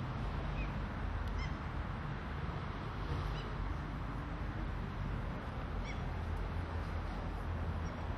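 Outdoor ambience: a steady low rumble with an even background hiss, broken by a few short, high-pitched chirping calls scattered through.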